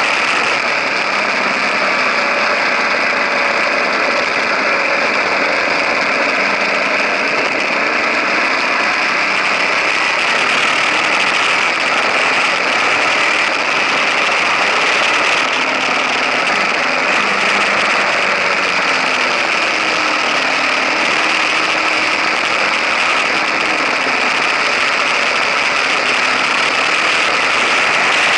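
KTM 1050 Adventure's V-twin engine running at road speed, under a steady rush of wind and tyre noise on the low-mounted camera. The engine note rises and falls gently with the throttle.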